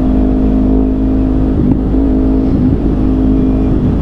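Kawasaki Ninja 250R's carbureted parallel-twin engine running at a steady cruising speed while riding, over a constant low rumble of wind on the microphone.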